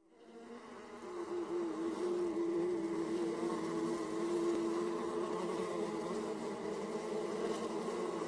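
Honeybees in flight buzzing: a steady hum that wavers slightly in pitch, fading in over the first second.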